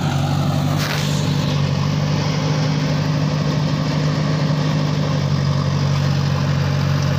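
JCB backhoe loader's diesel engine running steadily as the backhoe arm digs, with a short hiss about a second in.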